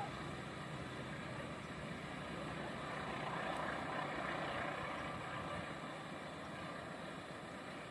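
Steady rumble of a diesel-hauled freight train running away along the track, slowly fading as it recedes.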